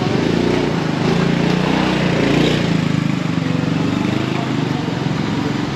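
Small vehicle engine running close by in street traffic, strongest in the first three seconds and fading near the end.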